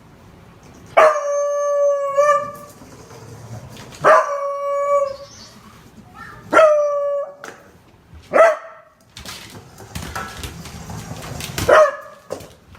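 A beagle baying: five drawn-out howling calls, each opening sharply and dropping to a held note. The first, about a second in, is the longest; the last two are shorter.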